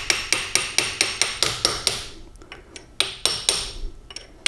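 Hammer tapping a punch in quick, even metal-on-metal strikes with a ringing ping, driving a Super T10 transmission's third-speed synchronizer assembly down onto the mainshaft splines. About ten strikes at roughly five a second, a pause of about a second, then a shorter run of about four more.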